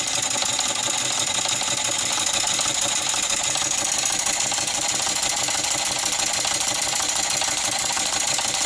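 Small vertical steam engine running smoothly on about 4 pounds of compressed air, driving an American Boy toy scroll saw: a steady, fast mechanical clatter of the engine and the saw's reciprocating blade.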